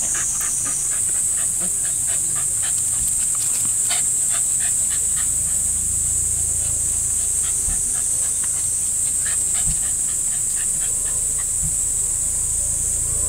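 Dogs panting in quick short breaths as they play, densest in the first few seconds, over a loud steady high-pitched drone.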